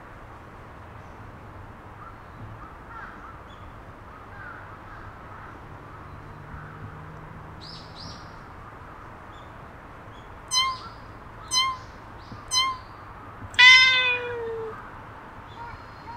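Cat meowing: three short meows about a second apart, then one longer, louder meow.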